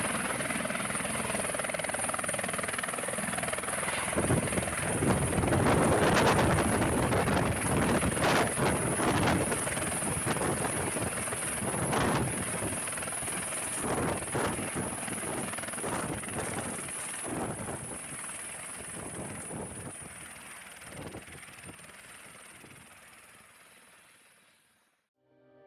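Airbus H130 helicopter running: a steady high turbine whine over a rough, pulsing rotor noise. The sound grows louder a few seconds in, then fades away steadily until it is almost gone.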